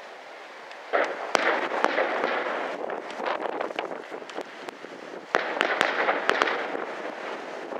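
Fireworks display: about a second in a burst sets off a dense crackling that slowly dies away. A second loud burst comes about five and a half seconds in, followed by a few sharp bangs and more crackling.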